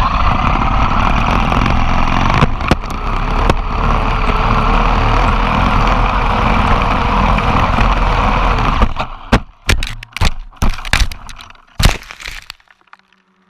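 Traxxas Maxx electric RC monster truck running flat out, a steady loud rush of motor and tyre noise, which breaks off about nine seconds in into a series of sharp knocks and clatters as the truck crashes and tumbles, then stops.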